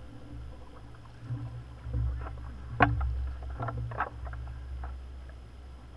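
Oar strokes on a small rowing boat on calm water: knocks of the oars and splashes of the blades, with one sharp knock about three seconds in and a few more soon after, over a low steady rumble.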